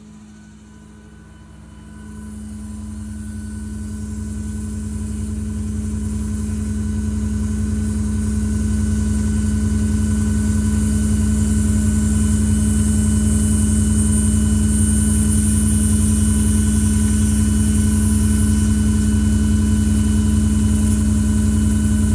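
CAS40P hydraulic-driven air compressor on a service truck running and building tank pressure toward its cut-off of a little over 150 psi, with a steady hum. It starts about two seconds in and grows louder over the next ten seconds, then runs steadily.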